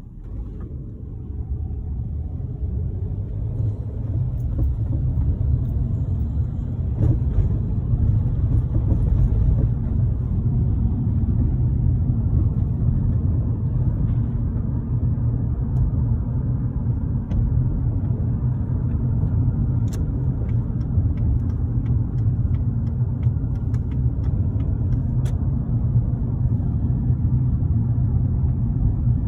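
Low, steady rumble of a car driving, as heard from inside: road and engine noise that builds over the first several seconds as the car gathers speed, then holds steady.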